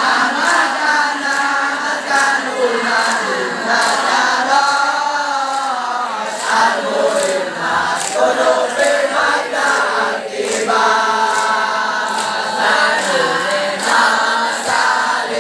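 Group of teenage boys chanting a yel-yel cheer in unison, half sung to a tune.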